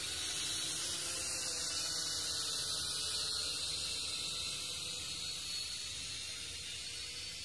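Syma X5C-1 toy quadcopter's motors and propellers whining steadily in flight, with a high hiss and a pitch that drifts slowly.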